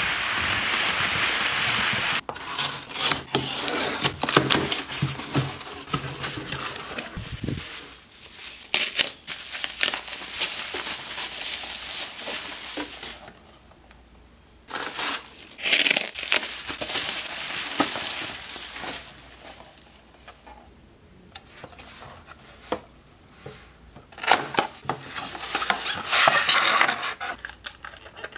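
Packaging being handled and unpacked: crinkling and rustling of plastic and bubble wrap, with irregular clicks and taps of the plastic display box and cardboard. It opens with about two seconds of steady hiss.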